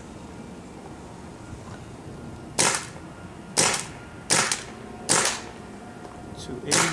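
Planet Eclipse Ego 11 paintball marker, fitted with its stock Cure 3 bolt, firing five single shots about a second apart, the first about two and a half seconds in and the last near the end. Each is a sharp, short pop. The shots chronograph at about 280 fps.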